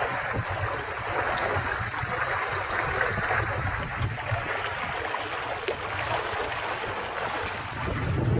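Water rushing and splashing along the hull of a small sailboat sailing at about 3 to 4 knots, with wind buffeting the microphone. The wind rumble grows stronger near the end.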